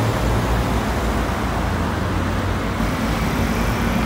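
Steady city street traffic noise, with a car driving past at low speed and a continuous low rumble of engines and tyres.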